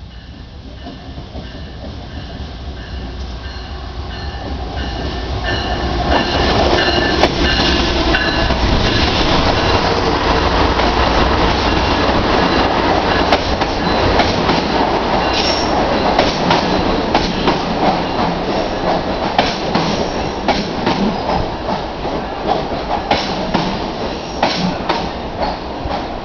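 GE BB40-9WM diesel-electric locomotive hauling a passenger train, growing louder over the first six or seven seconds as it draws in. The passenger coaches then roll past, their wheels clicking sharply and repeatedly over the rail joints, with a few brief high wheel squeals.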